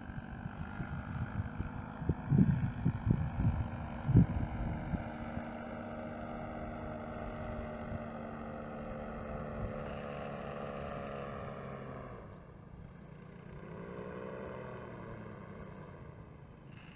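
Paramotor trike engine and propeller droning overhead in flight, its pitch sinking slowly as it passes; about twelve seconds in the sound drops away, then briefly swells and falls again. Wind buffets the microphone in low thumps during the first few seconds.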